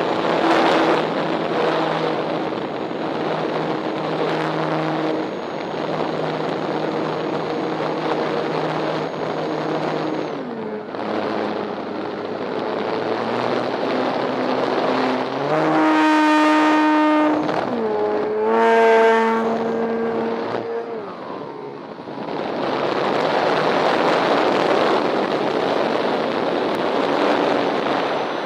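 Radio-controlled model airplane's engine running in flight, its pitch shifting up and down with throttle and passes, loudest and clearest around the middle as it comes close, then briefly fading. Strong wind rushes over the microphone throughout.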